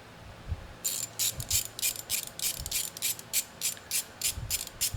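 Ratcheting tool clicking in quick regular strokes, about four a second after a quiet first second, as a thread is tapped into a cast iron plate.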